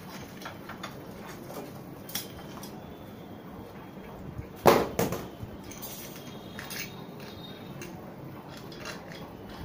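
Metal parts of an antique kerosene Stirling engine fan clinking and knocking as its cast-iron triangular stand is fitted, with light clicks throughout and a loud metallic knock about halfway through, followed closely by a smaller one.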